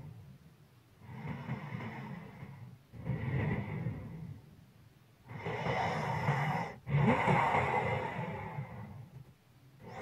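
A sleeping person breathing heavily and noisily, about four long breath sounds in a slow rhythm, each with a slight rasp but not yet a full snore.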